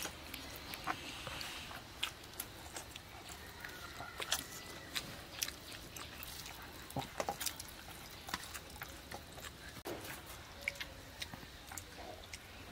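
Eating sounds: chewing and lip smacks, with irregular small clicks of fingers and food on stainless steel plates, as rice and curry are eaten by hand.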